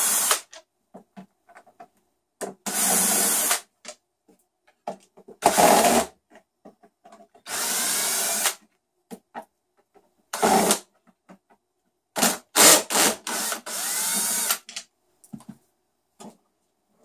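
Cordless drill/driver running in a series of short runs of about half a second to a second each, with gaps between, backing screws out of the plastic housing of a Mosquito Magnet trap to free its stand. Small clicks and handling knocks fall between the runs.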